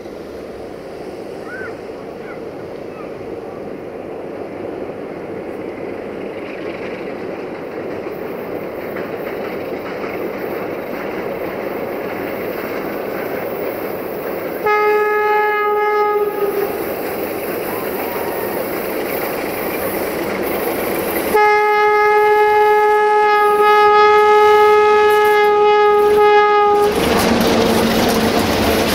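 Romanian 060-DA (LDE2100) Sulzer diesel-electric locomotive approaching at the head of a freight train, growing steadily louder. It sounds a single-note horn twice: a short blast about halfway in and a long blast of about five seconds near the end. The wagons then roll past with a clatter over the rail joints.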